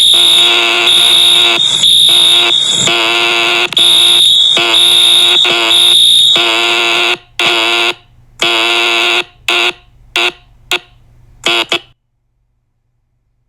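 Fire alarm sounding very loudly, a harsh pitched ring that pulses steadily. About seven seconds in it breaks into shorter, uneven bursts, then cuts off about twelve seconds in.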